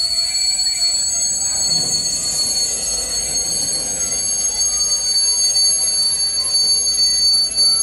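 Freight train of covered hopper wagons rolling slowly past, with a steady high-pitched squeal from its wheels: several squealing tones held at once over a low rumble.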